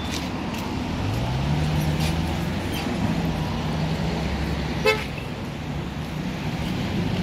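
Cars passing on a busy multi-lane road. One engine note rises about a second in and holds steady for a few seconds. A brief, sharp car horn toot sounds near the middle.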